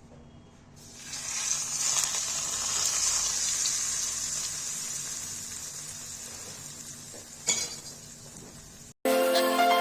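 Hot cooking oil sizzling. It swells about a second in and slowly dies down, with a brief clatter near the end. Music starts just before the end.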